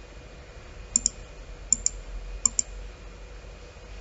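Computer mouse button clicked three times, less than a second apart, starting about a second in. Each click is a quick double snap of press and release. A faint steady hum lies underneath.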